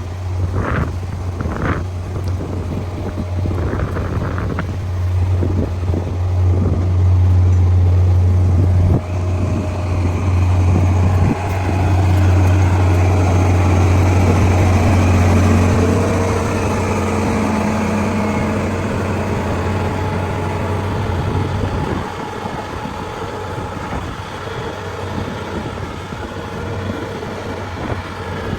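Engine of heavy road-construction machinery running with a steady low hum, with a few knocks in the first seconds; the hum drops away about two-thirds of the way through, leaving lighter engine noise.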